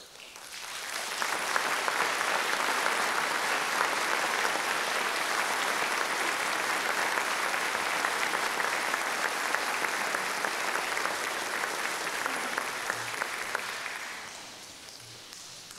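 Concert audience applauding: the clapping swells up within the first second or two, holds steady, then dies away about fourteen seconds in.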